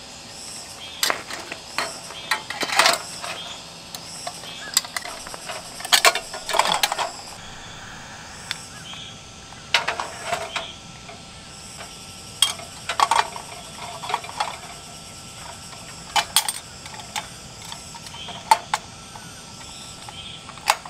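Scattered clinks and clicks of metal and glass as a small glass-globed lantern is handled, fitted together and set down on a metal mesh camp table.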